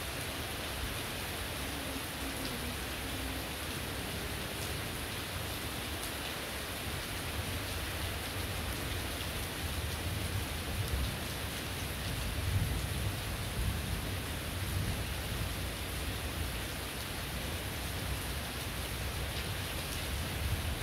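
Heavy rain pouring steadily onto the ground, plants and roofs, an even hiss of falling water. A low rumble swells underneath about halfway through.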